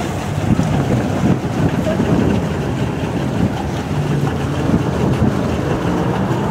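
Steady low rumble of wind on the microphone and water churning alongside an open swan boat, with faint voices in the background.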